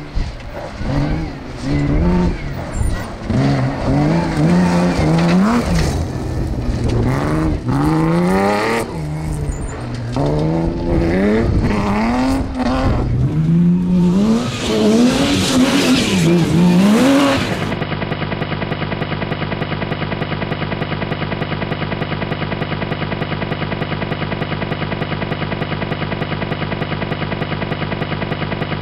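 BMW 325 rally car engine revving hard on a gravel stage, its pitch climbing and dropping again and again through gear changes and lifts as the car slides past. About two-thirds of the way in, this cuts off suddenly to a steady, evenly pulsing hum made of several fixed tones.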